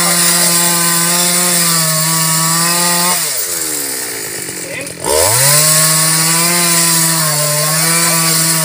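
Two-stroke chainsaw at full throttle cutting through a mù u (Alexandrian laurel) trunk. About three seconds in the engine is let off and its pitch falls away, then it is revved back up about five seconds in and cuts on steadily.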